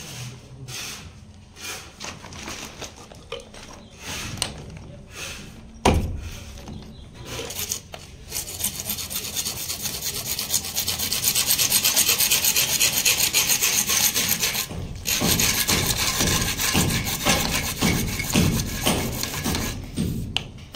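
A CPVC pipe being cut by hand with a bare hacksaw blade: rapid back-and-forth sawing strokes start about eight seconds in, pause briefly near fifteen seconds, then carry on. Before that, lighter rubbing and handling of the pipe, with one sharp knock about six seconds in.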